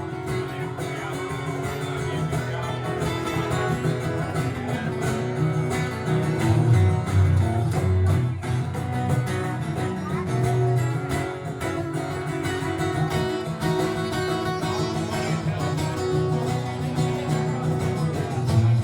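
Live country band playing an instrumental break between vocal lines, with guitar to the fore over bass and drums.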